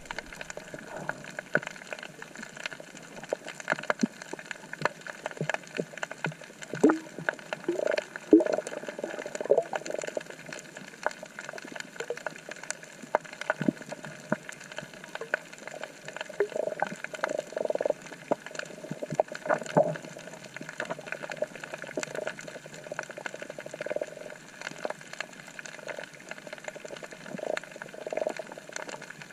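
Underwater ambience on a reef: a constant crackle of scattered sharp clicks, with gurgling bubble bursts several times.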